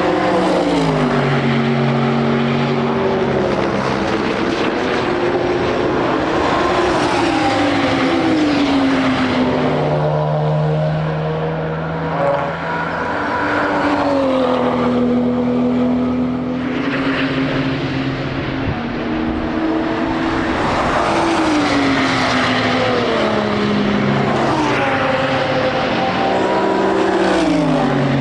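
Several race cars passing one after another, their engines revving hard. The engine pitch drops in repeated steps as they shift down under braking, then climbs again as they accelerate away.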